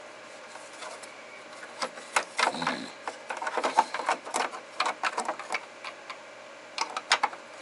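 Irregular clicks, taps and light knocks of small parts being handled and fitted on a refrigerator, starting about two seconds in.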